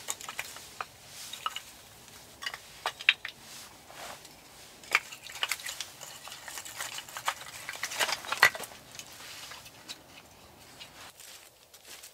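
Split firewood pieces knocking and clattering together as they are picked up by hand from a woodpile: irregular sharp wooden knocks, thinning out near the end.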